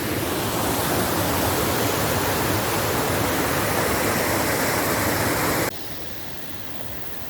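Waterfall running heavy with rainy-season flow: a steady, loud rush of falling water that drops suddenly to a much fainter hiss about six seconds in.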